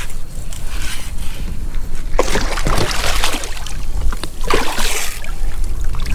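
A hooked striped bass thrashing and splashing in shallow water among rocks, with two louder bursts of splashing, about two seconds in and again near five seconds, over a steady low rumble.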